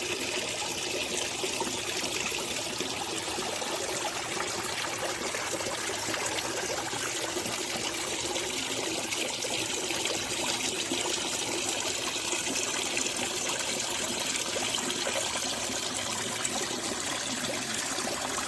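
Lake water trickling and splashing in a steady, unbroken rush.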